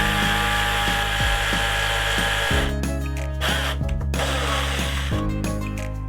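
Power drill running steadily for about two and a half seconds, then in short on-off bursts, over background music with a steady bass line.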